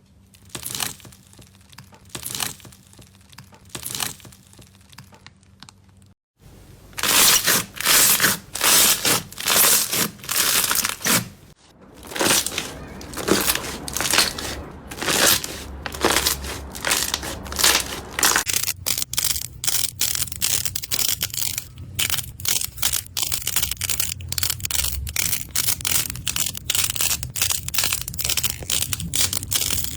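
Slime being squeezed and pressed by hand, making crinkly, crackling squishes that come in separate bursts about a second apart, changing abruptly a few times, with a fast run of small crackles in the last third.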